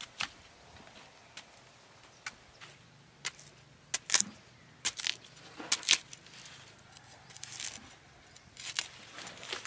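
Machete cutting hands of green bananas off the bunch's stalk: a series of irregular sharp chops and cracks, the loudest about four and six seconds in.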